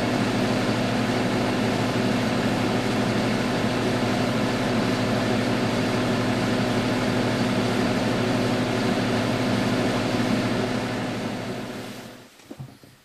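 Self-propelled crop sprayer running steadily, heard as an even machine drone with a steady hum in it, fading out near the end.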